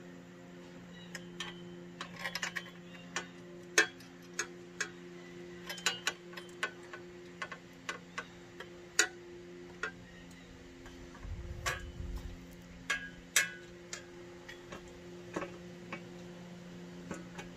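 Irregular metallic clicks and clinks of hand tools and bolts as a steel work table is fastened onto an electric log splitter, with a steady low hum underneath. A dull low thud comes a little past the middle.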